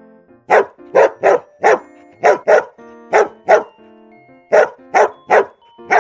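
A dog barking about a dozen times in quick runs of two to four barks, over a soft background music bed.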